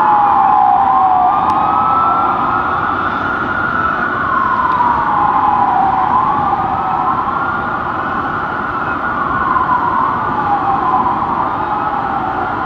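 Sirens of a fire engine and a ladder truck on an emergency response, wailing in slow rising and falling sweeps. Two sirens overlap out of step, over a steady low rumble of traffic and engines.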